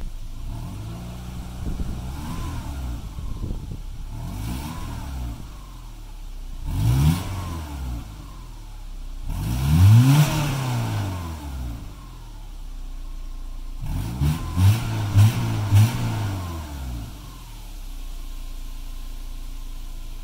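2002 Subaru Impreza 2.5's non-turbo flat-four running through an Invidia N1 3-inch catback exhaust, idling and being revved in the driveway. Several revs rise and fall, the longest and loudest about ten seconds in. Three quick blips follow near fifteen seconds before the engine settles back to idle.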